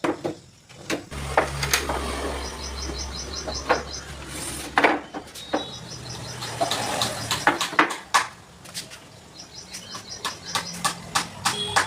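Irregular sharp knocks and clicks of hand tools being worked on wood. A low hum runs through the first few seconds, and two fast runs of short high ticks come in, one early and one near the end.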